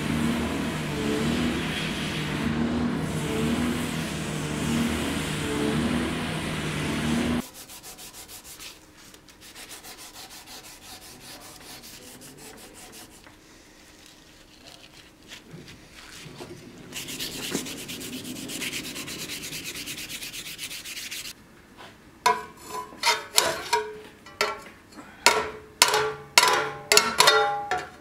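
Steel knife blade being worked by hand: loud rubbing strokes about once a second, then quieter scraping, and in the last six seconds a quick run of sharp metallic clicks that ring briefly.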